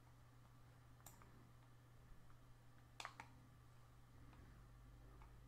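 Near silence with a few faint computer mouse clicks: one about a second in and two in quick succession near three seconds, over a low steady hum.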